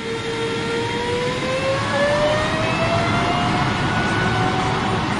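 A motor spinning up: a whine climbs steadily in pitch for about three seconds over a continuous rushing noise, then holds steady.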